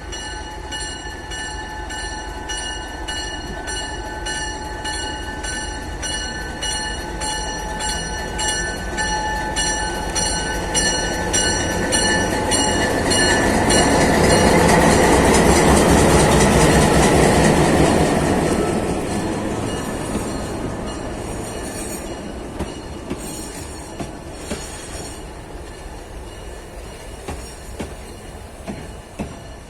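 Emaq MX620 diesel locomotive's Alco 12-251-CE V12 engine running with a steady whine, swelling to its loudest about halfway through as the locomotive passes, then fading as it moves away, with scattered clicks near the end.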